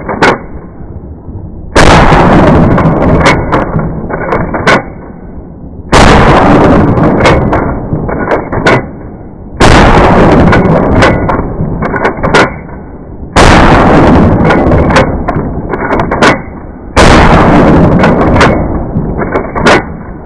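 Remington 870 12-bore pump-action shotgun fired five times, roughly every three and a half to four seconds. Each shot is a sudden deep boom that dies away slowly over two to three seconds, as in slowed-down slow-motion audio. Short sharp clicks and clacks of the pump action cycling come between the shots.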